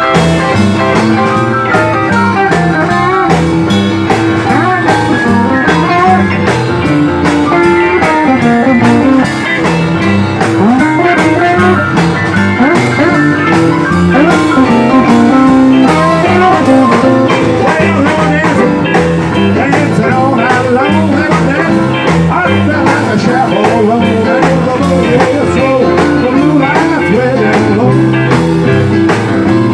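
Band playing a boogie-woogie blues number: guitar lines over a walking bass and a steady beat.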